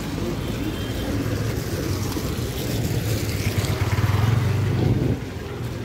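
Street traffic: a motor vehicle's engine running close by, a low hum that grows louder and then drops away suddenly about five seconds in.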